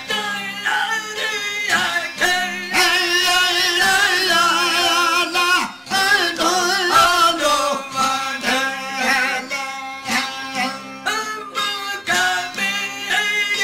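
Male folk singing with long-necked stringed instruments. Over a steady low drone, the strings are plucked in a quick regular rhythm while a voice sings with heavy vibrato, shaking most strongly about three to six seconds in.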